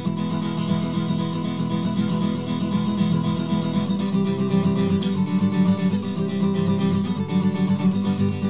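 Background music: strummed acoustic guitar playing steadily.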